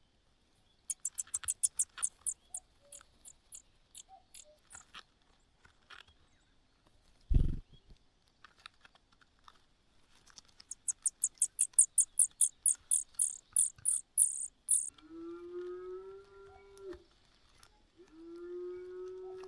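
Nestling birds begging: two runs of rapid, very high-pitched cheeps, about ten a second, with a single thud in the middle. Near the end come two long, level, lower-pitched calls of about two seconds each.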